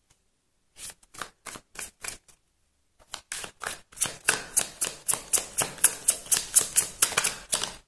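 A deck of tarot cards being shuffled by hand in crisp, slapping strokes. A few separate strokes start about a second in, then after a short pause they come fast, about five a second.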